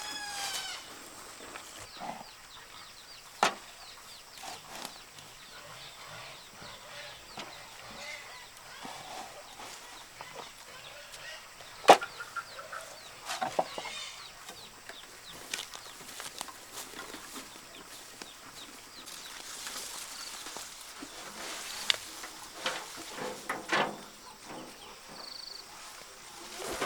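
Chickens clucking, with a few sharp knocks or clicks scattered through, the loudest about halfway.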